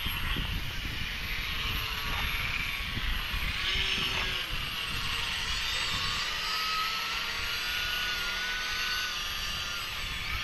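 Radio-controlled model airplane's motor and propeller buzzing overhead, its whine shifting in pitch with throttle and manoeuvres. Wind rumbles on the microphone underneath.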